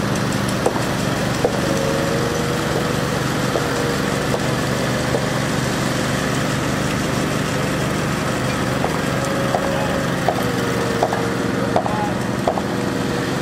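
Rhino Tuff R46H9 walk-behind power trowel's small gas engine running steadily as its spinning blades work fresh concrete, its pitch wavering slightly, with scattered light clicks.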